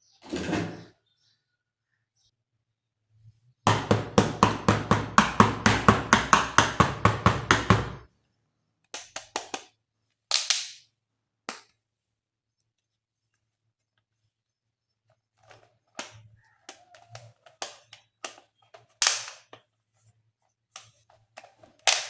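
Plastic electric toy gun firing, a rapid, even clatter of about six strokes a second over a low motor hum, lasting some four seconds. Around it, scattered clicks and knocks of plastic toy parts being handled.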